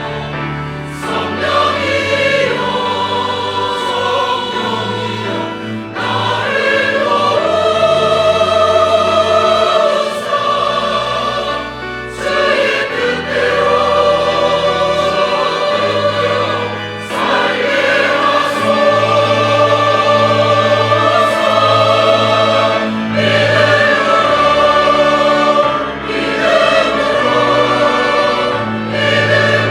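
Church choir singing a sacred anthem in sustained chords, the phrases swelling and briefly easing about every four to six seconds.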